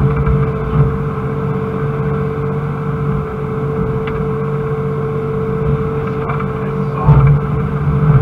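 Excavator's diesel engine and hydraulics running steadily under digging load, heard from inside the cab, with a steady whine over the engine rumble. A louder knock comes about seven seconds in as the bucket works the soil.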